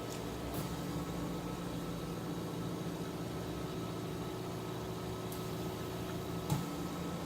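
Steady low mechanical hum, like a fan or appliance running, with a few faint clicks; one sharper click comes near the end.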